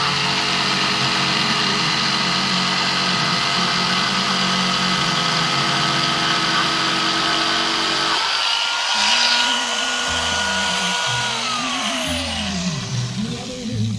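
DeWalt DW333K 701 W jigsaw sawing through thick timber, its motor running steadily under load. About eight seconds in the blade comes out of the cut and the pitch rises slightly. About three seconds later the motor is switched off and winds down.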